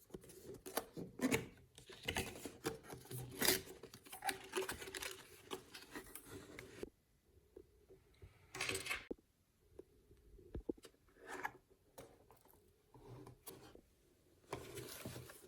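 Hands opening a headphone box and handling its packaging: scattered clicks, taps and rubbing, with a short rustle about nine seconds in and another near the end.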